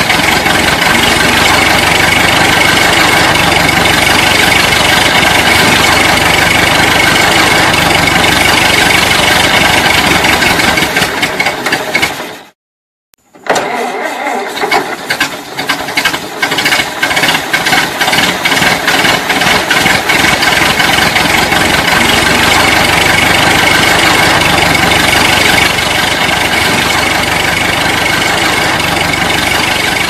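Vintage car engine running steadily, then cut off about twelve seconds in. After about a second of silence it is cranked and catches, firing unevenly for several seconds before settling into a steady run again.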